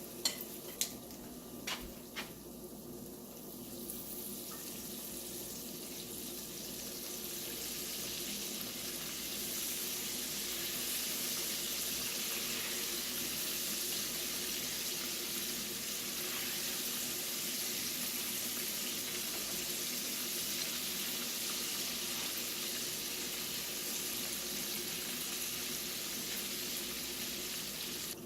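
Battered cauliflower pieces sizzling in hot frying oil. A few sharp clicks in the first couple of seconds, then the sizzle builds over several seconds and holds steady.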